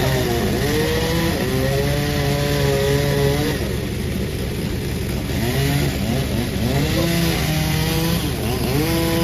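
Panda36 two-stroke chainsaw cutting through a jackfruit log at high revs, its pitch sagging and recovering under the load of the cut. About midway the engine drops to a lower, uneven speed for a couple of seconds, then revs back up.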